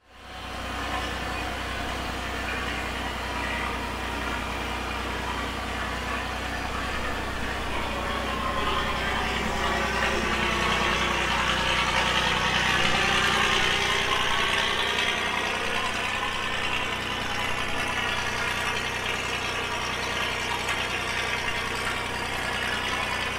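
Early Cummins diesel engine of a restored Linn half-track tractor truck idling steadily, fading in at the start.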